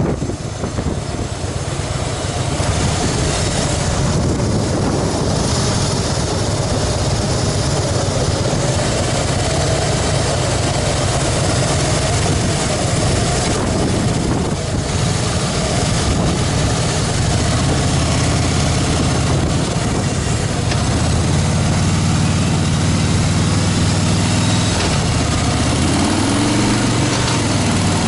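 2014 Harley-Davidson Fat Boy Lo's V-twin engine running steadily while riding, with rushing road noise; near the end the engine pitch dips and rises again.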